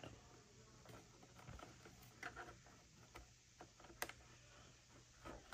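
Faint scattered clicks of a handset cord's small plastic modular plug being worked into the handset jack on the back of a Yealink T41S desk phone, with one sharper click about four seconds in.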